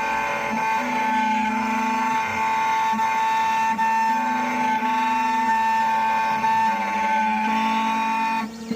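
Electronic key cutting machine milling a Ford HU101 key blade: a steady, high motor whine with a lower tone that shifts every second or so as the cutter works along the blade. The sound drops away shortly before the end.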